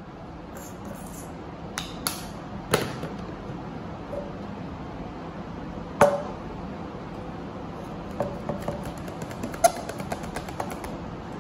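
A clear plastic cup handled on a wooden table: a few sharp knocks, the loudest about six seconds in as the cup is lifted, then a run of quick light taps near the end as a wooden stick stirs inside the cup.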